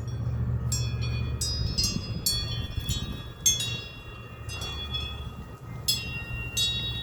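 Wind chimes ringing in irregular clusters of strikes, each note ringing on and fading, as the breeze moves them, with a steady low rumble of wind on the microphone.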